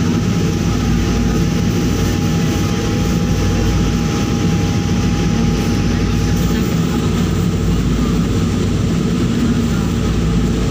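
Passenger ferry's engines running with a steady low drone, heard from the open-sided deck, with a thin whine that stops about two-thirds of the way through.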